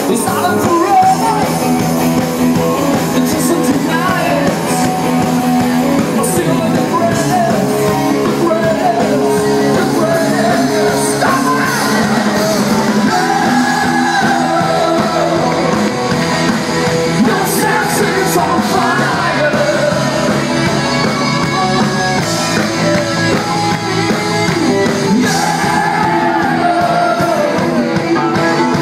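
A live band playing loudly with a singer, recorded from within the audience.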